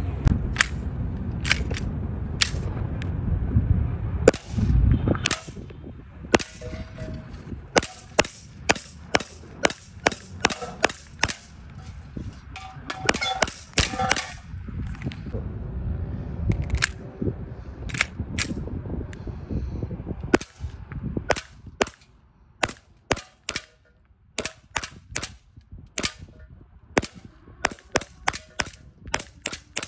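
WE G17 Gen5 green-gas blowback airsoft pistol firing semi-auto, dozens of sharp cracks with the slide cycling, at an uneven pace and then in quick strings in the last third. A low rumble sits under the first few seconds.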